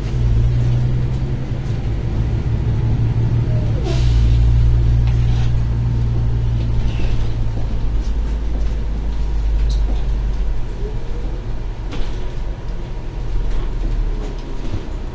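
Inside a LiAZ-5292.22 city bus under way: the steady low hum of its diesel engine and drivetrain with road rumble, the engine note shifting about four seconds in and easing off about eight seconds in. A single sharp knock about twelve seconds in.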